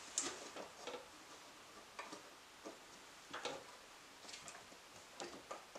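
Faint, irregular light clicks and taps of hand tools and fasteners being handled on a front strut-top caster plate.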